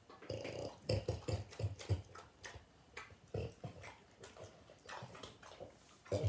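French bulldogs chewing and smacking their mouths over food, a run of short irregular smacks and clicks that is busiest in the first two seconds and thins out after.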